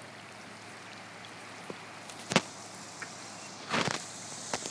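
Floodwater running over a street: a steady wash of water noise. A sharp knock comes about two and a half seconds in, the loudest sound, with a short burst of rustling just before four seconds and a smaller click near the end.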